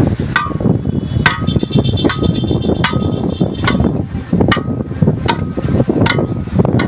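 Long steel tyre bar driven repeatedly against a truck's steel wheel rim at the tyre bead, giving sharp ringing metal clangs about once every 0.8 seconds, nine strikes in all.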